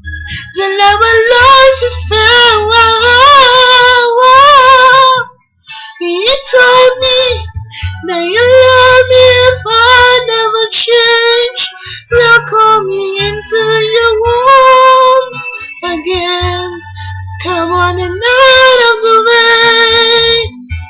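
A woman singing a slow pop ballad over a backing track, holding long notes with wavering vibrato. The phrases are broken by short pauses, with one brief full stop about five seconds in.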